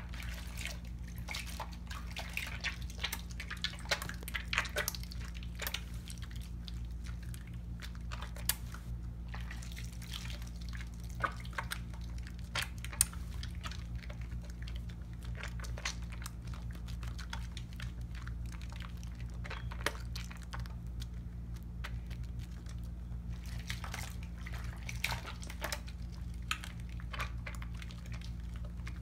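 Wet hands lathering a Tone cocoa butter bar soap: irregular squishing and crackling of soap and foam, with small splashes of water, over a steady low hum.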